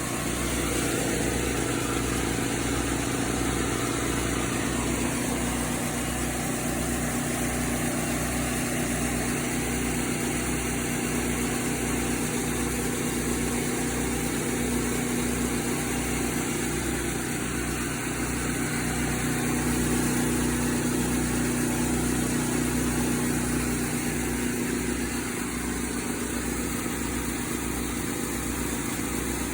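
Service-truck air compressor running steadily under continuous operation, with a low, even pulsing rhythm under a steady hum.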